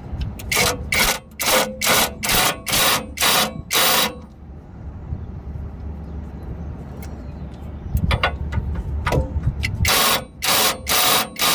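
Impact wrench with a 19 mm socket on a universal joint, fired in a quick series of short trigger bursts on a tie rod bolt, then after a pause of several seconds another series of bursts near the end.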